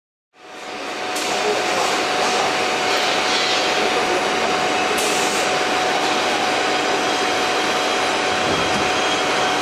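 Factory metalworking machine running steadily: a dense whirring noise with a faint steady whine, fading in just after the start. Two short rises of hiss come about a second in and about five seconds in.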